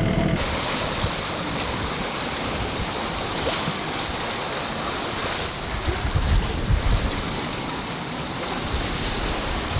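Sea and wind noise aboard a sailing yacht under way: a steady wash of water, with wind buffeting the microphone now and then.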